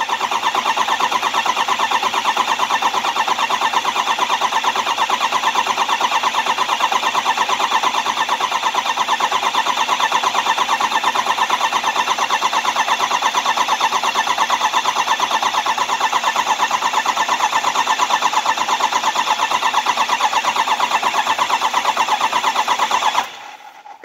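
2005 Ford 6.0 Power Stroke V8 turbo-diesel cranking on its starter with a steady, even, rhythmic pulse. It turns over but does not fire, a crank-no-start, and the cranking cuts off abruptly about 23 seconds in.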